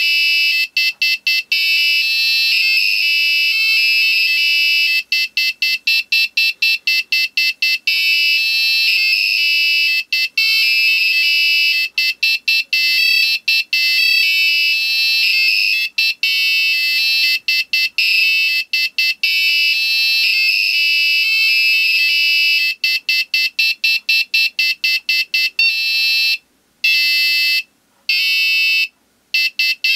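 A small buzzer on an Arduino breadboard alarm clock sounds a loud, high-pitched alarm tone, broken again and again by clusters of rapid stutters. Near the end it breaks into a few separate beeps with longer pauses. This is the clock's 'intense tone' alarm, which keeps cycling because its photocell has not been covered.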